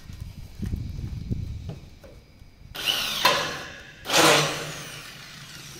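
Cordless drill running in two short bursts against steel hollow-section roof framing, about three seconds in and again a second later; the second burst is the louder. Low knocks come first.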